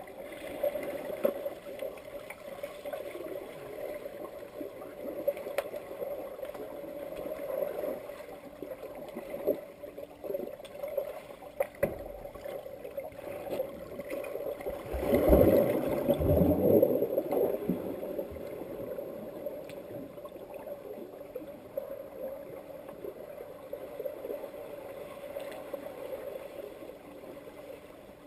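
Underwater pool sound picked up by a submerged camera: a steady hum with scattered clicks and knocks, swelling about halfway through into a louder churning rush of water and bubbles as a crowd of finned swimmers kicks close past.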